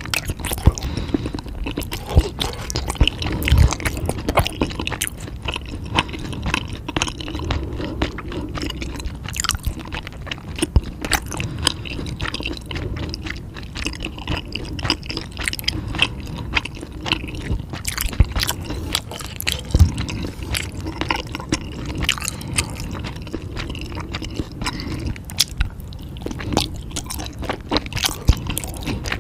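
Close-miked chewing and biting of food, with wet, squishy mouth sounds and a steady stream of sharp clicks and crunches.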